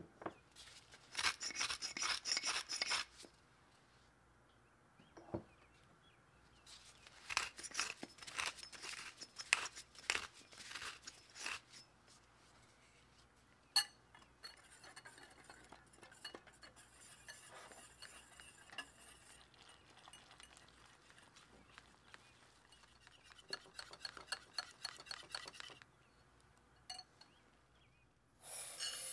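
Short bursts of gritty clicking as salt and pepper go in, then a wire whisk stirring flour and cornstarch in a glass bowl, its metal loops clinking and scraping against the glass in several spells of quick strokes. Near the end, a brief rushing hiss of breadcrumbs pouring into a stoneware bowl.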